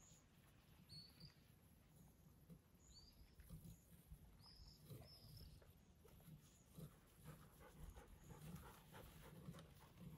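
Near silence: a dog panting faintly, with a few faint high chirps in the first half.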